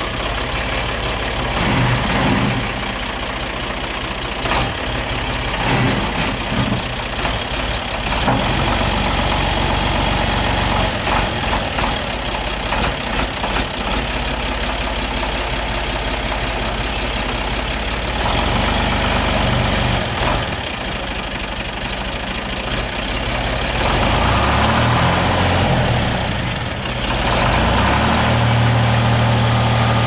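Long 2510 DTC tractor's three-cylinder diesel engine running while the tractor is driven back and forth. The engine speeds up and gets louder about three quarters of the way through.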